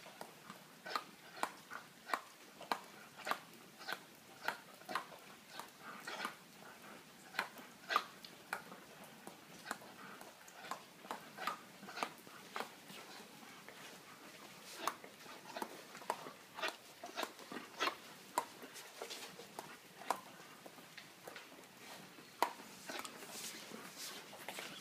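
Doberman's jaws snapping shut again and again as it bites at falling rain: sharp clicks about one to two a second, in runs with short pauses, over a faint steady hiss of rain.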